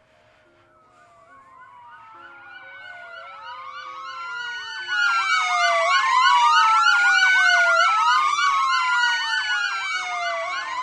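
Several sirens wailing over one another, slow rising-and-falling wails layered with quicker sweeps. They swell from faint to loud over about five seconds and stay loud, with faint low music notes underneath.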